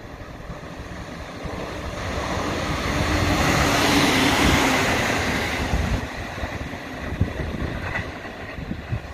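JR East E127 series two-car electric train passing through the station without stopping: its running noise builds as it approaches, is loudest as the cars sweep past about four seconds in, then fades as it pulls away, with a few clacks near the end.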